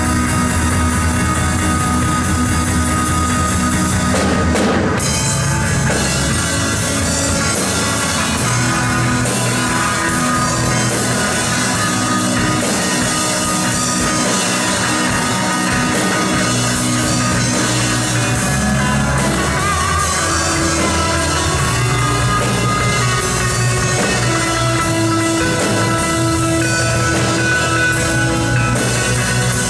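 Rock band playing an instrumental piece live on drum kit and electric guitars, with no vocals.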